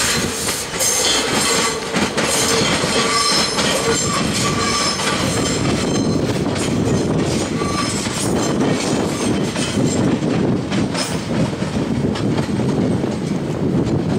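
A train rolling along the station tracks, its wheels clattering over the rails with a steady rumble. A high squeal from the wheels comes and goes through the first half.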